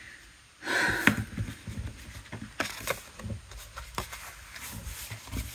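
Tabletop handling noise: a rustle about a second in, then light clicks and taps as a small card of watercolour paper is picked up and handled and a plastic water brush pen is set down on the table.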